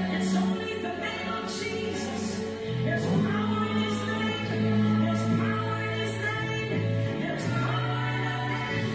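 Gospel worship music: a choir singing long held notes over instrumental backing, with light cymbal strikes.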